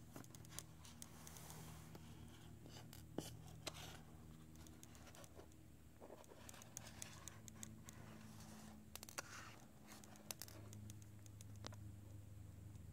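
Near silence: faint scattered clicks and scratchy rustles of hands handling an opened iPhone and its swung-up display assembly, over a low steady hum.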